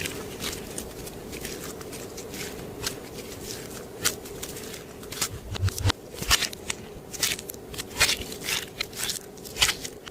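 Clear slime being squished and stretched by hand, with irregular wet clicks and crackles as air pockets in it pop.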